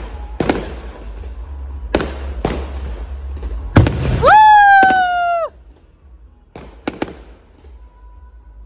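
Fireworks going off: several sharp bangs of bursting shells, then a loud whistling tone that rises and holds for about a second and a half before cutting off sharply, followed by a few more bangs.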